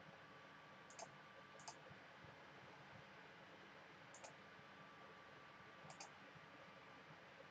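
Faint computer mouse clicks, about four spread over several seconds, against near-silent room tone.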